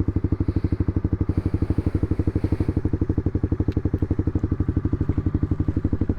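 Honda CBR300R's single-cylinder four-stroke engine idling steadily, its exhaust pulsing evenly at about fourteen beats a second.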